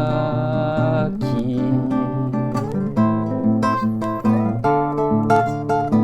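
Song with a man's voice holding the last sung note for about a second, then acoustic guitar strumming on alone over a low bass part.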